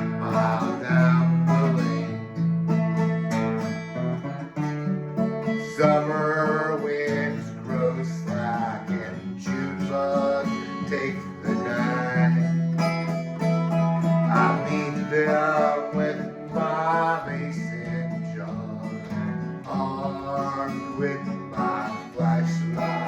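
Acoustic guitar-led band music with strummed chords under a wavering melody line, and no sung words.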